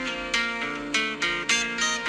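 Background music: an acoustic guitar picking single ringing notes, about two or three a second, with no singing.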